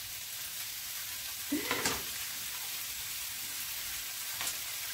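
Sliced chicken sausage sizzling steadily in hot olive oil in a frying pan, freshly added to the heated pan. One brief louder sound breaks in about two seconds in.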